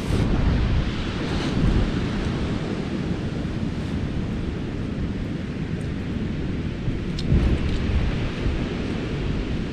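Wind buffeting the microphone on a beach, a low rumbling roar with stronger gusts near the start, at about two seconds and again about two thirds of the way through.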